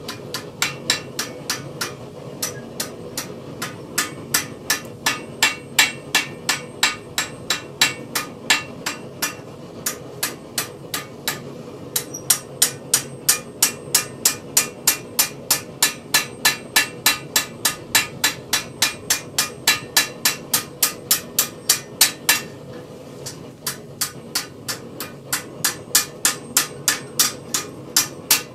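Blacksmith's hand hammer striking steel in quick, even blows, about three a second, stopping briefly twice: repoussé work on a forged acanthus leaf over a stake.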